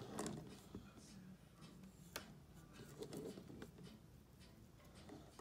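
Boiled quail eggs being handled and peeled by hand: faint, scattered clicks and crackles of thin shells cracking and coming away, with one sharper click about two seconds in.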